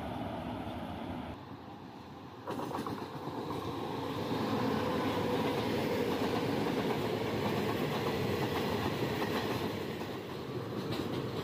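Indian Railways WAG-9 electric freight locomotive and its train passing close at speed: a steady rumble with the clickety-clack of wheels over the rail joints, after a brief quieter moment about two seconds in.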